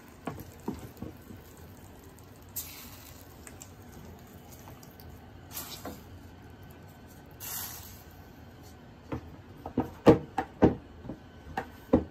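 Three short hisses, then a run of sharp knocks and clinks as a utensil works salmon fillets around a stainless steel pan, the loudest knock about ten seconds in.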